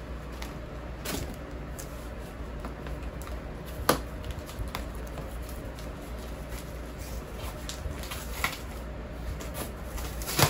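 Cardboard record mailer being handled and cut open with scissors: scattered scrapes and clicks, with a sharp knock about four seconds in and another at the very end. A room fan hums steadily underneath.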